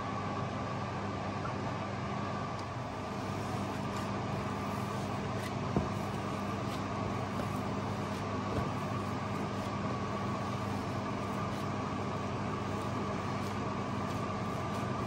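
Steady drone of a fan motor with a constant high whine, and a few faint short clicks.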